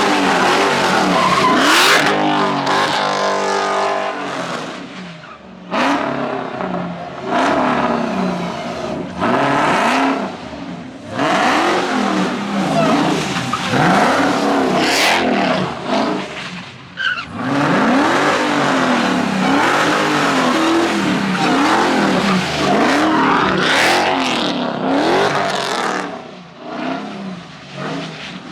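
High-performance car engine revving up and down over and over, with tyres spinning and skidding on the pavement, as in a car doing burnouts and donuts.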